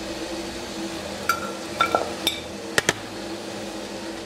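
Wire-mesh skimmer clinking against a metal pan as boiled chicken is lifted out of the broth: about six sharp metallic clinks between one and three seconds in, some ringing briefly, over a steady low hum.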